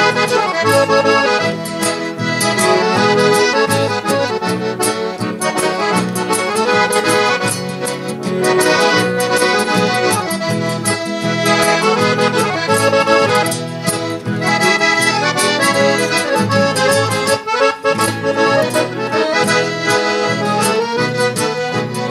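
Accordion playing an instrumental break in a southern Brazilian gaúcho dance song, over a steady bass accompaniment.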